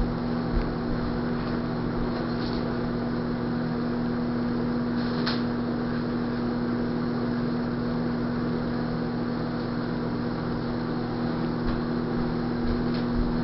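Steady low electrical hum with a strong constant tone, holding an even level throughout, with a couple of faint clicks.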